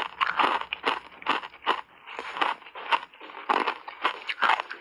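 Ice coated in matcha powder being chewed close to a lapel microphone: a rapid run of sharp, wet crunches, several a second, as the teeth break it up.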